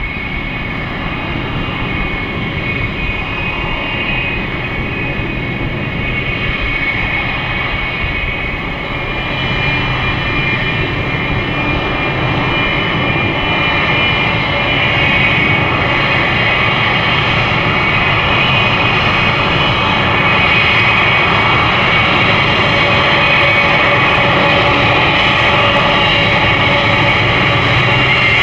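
General Electric GE90-115B turbofans of a Boeing 777-300ER running at taxi power as the airliner rolls along the taxiway. A steady jet whine with several high tones sits over a low rumble and grows gradually louder.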